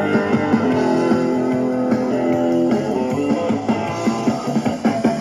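Guitar-led rock music playing back from a cassette on a Sony WM-51 Walkman, held guitar notes giving way to a busier, rhythmic passage about three seconds in.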